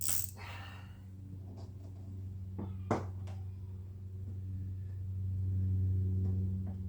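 Steady low hum with a couple of sharp clicks of hand tools being handled, the loudest about three seconds in.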